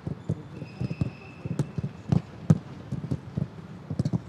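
Footballs being kicked and bouncing in a training session: a quick, irregular run of sharp thuds, several a second.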